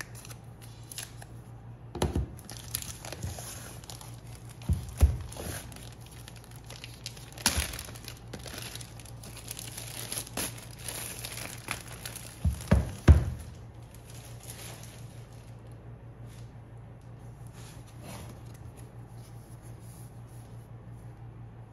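iPad Pro box packaging being opened by hand: crinkling and tearing of the wrapping, with several sharp knocks as the box is handled. The handling is busiest in the first two-thirds and settles to faint rustling near the end.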